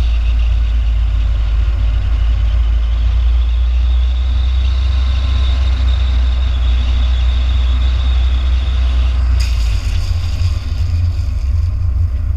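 Wind rumbling on a fast-moving camera's microphone, with the hiss of longboard wheels rolling on asphalt during a downhill run. About three-quarters of the way through, a harsher, brighter scraping hiss joins in as the rider puts a gloved hand to the road and slides.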